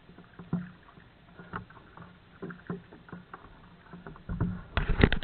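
Kayak paddle strokes in the water: scattered small splashes, drips and light knocks, growing louder and busier about four seconds in.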